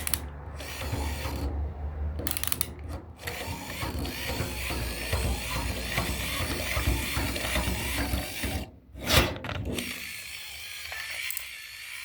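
Clockwork wind-up mechanism of a Disney Store Lenny toy clicking and ratcheting as it is worked, with a single louder knock about nine seconds in.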